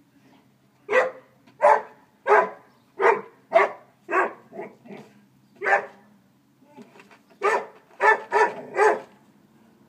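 A Boxador (boxer–Labrador mix) barking at a doormat in short, loud barks: about nine in quick succession, a pause of a second or two, then a burst of four more near the end.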